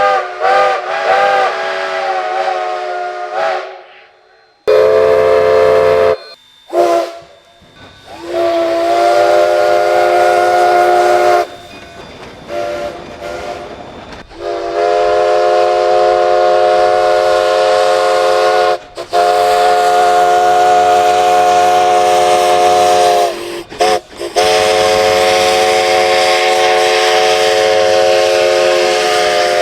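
Steam locomotive chime whistle blown repeatedly over a hiss of steam. A few quick short toots come first, then a string of long blasts that ends long, long, short, long: the grade-crossing signal.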